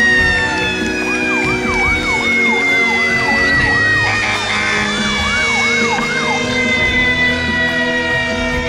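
Fire engine sirens: one long siren tone sliding slowly down in pitch throughout, with a second siren yelping rapidly over it, about two rising-and-falling sweeps a second, from about a second in until about six seconds in.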